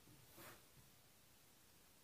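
Near silence: faint room tone, with one soft, brief rustle about half a second in.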